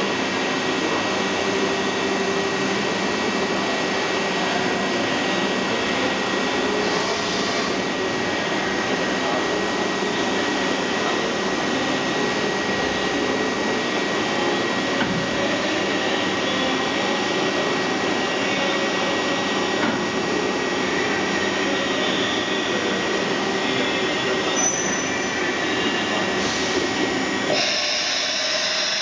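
STARVISION AC5 CNC machining centre running its fully automatic milling-head change: a steady mechanical hum of the machine's drives, with a constant high tone throughout. A brief hiss comes about 7 seconds in, and a stronger hiss starts near the end.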